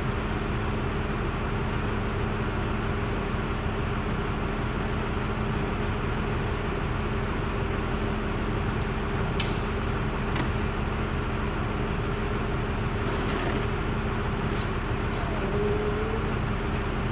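Steady mechanical drone with a constant hum, and a few light metallic clicks about halfway through.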